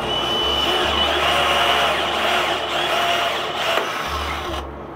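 18V cordless drill running a rivet adapter, its motor and gears whirring under load as it pulls the mandrel of a blind rivet. There is a sharp click just before four seconds in, and the whirring stops abruptly soon after.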